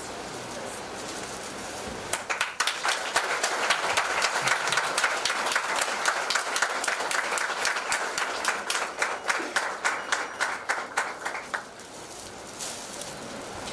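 An audience applauding: dense clapping starts about two seconds in and dies away near the end.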